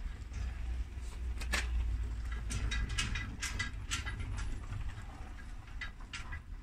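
Irregular scratchy strokes and clicks from hand-sanding an oxidised plastic headlight lens with 1000-grit sandpaper, busiest in the middle, over a steady low rumble.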